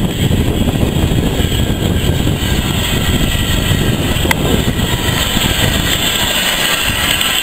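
Small steam tank locomotive standing at the platform, letting off a steady, loud rush of steam with a heavy low rumble underneath. A single sharp click a little past halfway.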